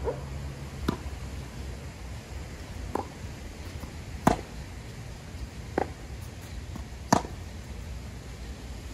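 Tennis rally: a tennis ball struck back and forth by rackets, five sharp pops about one and a half seconds apart, the two loudest about four and seven seconds in, over a steady low rumble.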